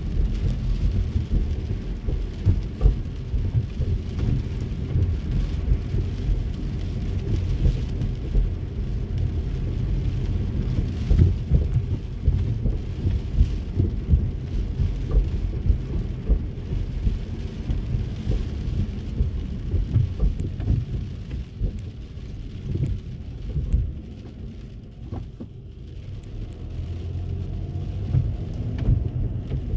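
Rain pattering on a car, heard from inside the cabin as a dense low drumming with many small ticks. It eases for a few seconds about three-quarters of the way through, then builds again.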